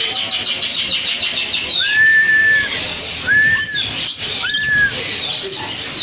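Caged birds chirping in a busy high chorus, with three clear whistled notes in the middle, each sliding up and then holding, about a second apart.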